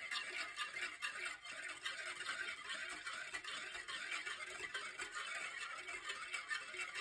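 Wire whisk beating a thin liquid mixture in a bowl, its wires ticking rapidly against the sides.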